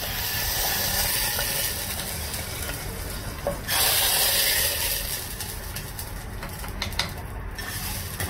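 Hot oil tempering of mustard seeds, dried chillies and curry leaves sizzling in beetroot pachadi in a clay pot, with a louder spell of sizzling about four seconds in.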